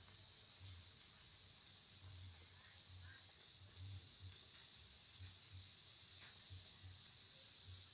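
Thick spiced gravy coming to the boil in a pan on the stove: a faint, steady hiss.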